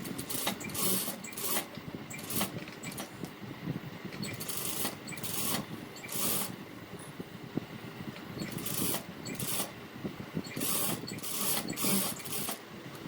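Sewing machine stitching the understitch close beside the neckline seam of a blouse, running in stops and starts. Short bursts of cloth rustling come as the fabric is handled and turned between runs.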